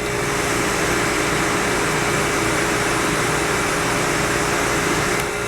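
1973 Gibson 8000 BTU window air conditioner running on high cool: a steady rush of air from the blower fan over the steady hum of the compressor. Near the end a click, after which the rush of air drops.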